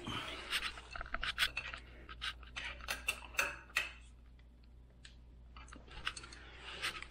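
Scattered light clicks and scrapes of hand and tool handling at a leveling bolt on the base of a DoAll surface grinder, thick for the first few seconds, then sparse, over a faint steady low hum.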